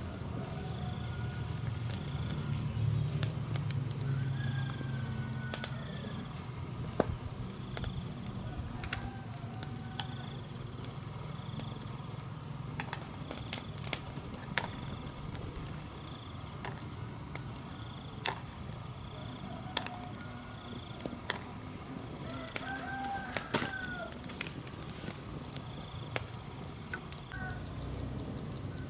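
Rural ambience: a small wood fire crackling with scattered sharp snaps, over a steady high insect drone, while chickens and a rooster call a few times, most clearly about two-thirds of the way through.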